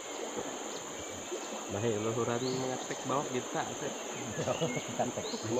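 Steady high-pitched drone of forest insects, with a few short rising chirps over it and people's voices murmuring briefly about two seconds in.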